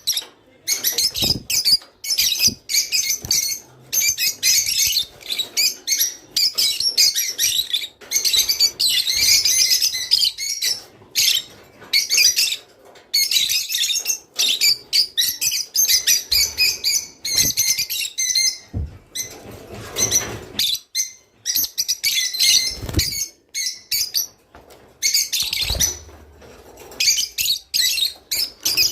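A flock of rosy-faced lovebirds chattering: dense, rapid, high-pitched chirps and squeaks in bursts with short pauses, the contact and courtship chatter of a breeding flock. A few duller thumps come in among the calls.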